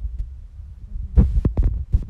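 Low thumps and a short scratchy stroke about a second in, from a flat brush being worked on cold-pressed cotton watercolour paper on a painting board.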